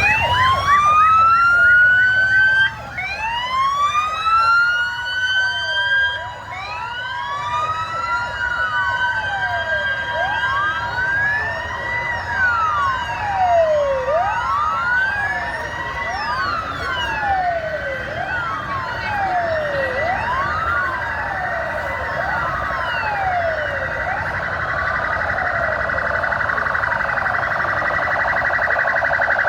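Several police vehicle sirens wailing at once, their rising and falling tones overlapping out of step. Near the end they thicken into a dense, fast warble.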